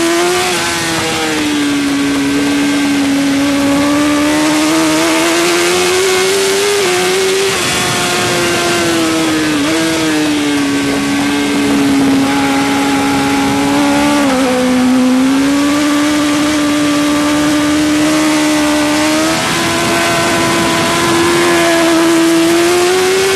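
Suzuki GSX-R1000 K5 superbike's inline-four engine running hard at high revs, heard onboard at racing speed. Its note rises and falls slowly and dips sharply in pitch a couple of times, over a steady rush of wind.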